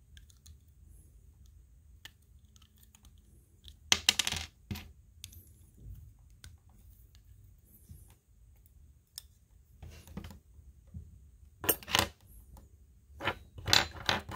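Small plastic Lego pieces clattering and clicking as they are handled, with short rattles about four seconds in and twice near the end, and light clicks in between.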